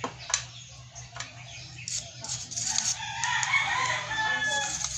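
A rooster crowing in the background: one long call through the second half. Before it come a few light clicks and scratchy noises from the hard drive circuit board being handled and brushed.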